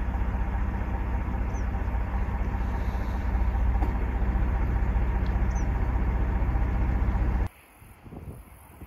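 Vehicle engine running with a steady low hum, with two faint high chirps over it. About seven and a half seconds in it cuts off abruptly to faint wind noise.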